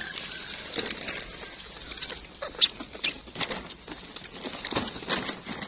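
Footsteps rustling and crackling through dry grass and stubble: irregular sharp crackles, several close together past the middle.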